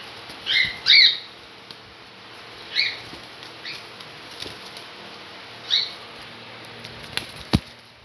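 A cockatiel flapping its wings while being held and handled, giving about five short, high calls in the first six seconds. Two sharp clicks come near the end.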